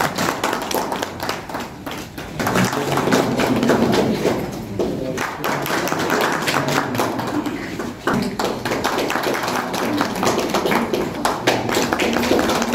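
A small group of people clapping continuously, the separate hand claps plainly audible, applauding each person as they come up.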